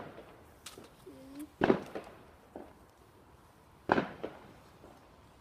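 Firework bangs going off nearby at a steady pace, about two seconds apart, each dying away in a short echo. There is one right at the start and two more, the loudest sounds here, under two and about four seconds in.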